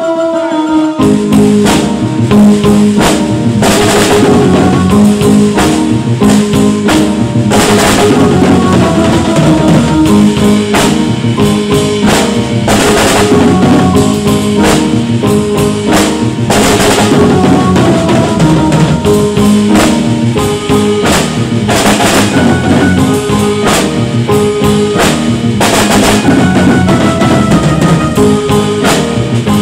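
Drum kit played continuously in a steady rhythm, with hits on drums and cymbals, along with recorded backing music that carries a melody and bass line.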